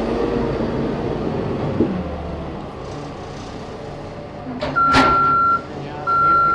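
Cat 416F backhoe loader's diesel engine running steadily as the machine backs up. About five seconds in its reversing alarm starts beeping, a single high tone about once a second. A single sharp knock sounds just as the beeping starts.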